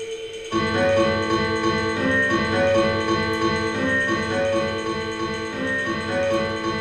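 Live ensemble music: a single held note, then about half a second in a louder, fuller texture of pitched notes comes in, with a short melodic figure repeating roughly every two seconds.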